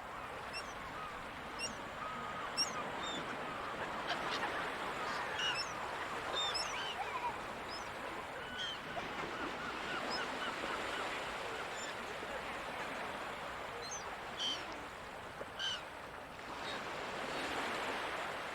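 Many gulls calling, short yelping calls overlapping at irregular intervals, over the steady wash of ocean surf.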